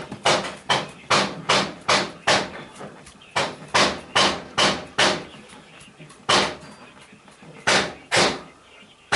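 A run of sharp slapping blows from a chiropractor's hands striking the patient's body during the treatment. There are about fifteen strikes, roughly two and a half a second, in two runs of six with a short pause between, then three more spaced further apart.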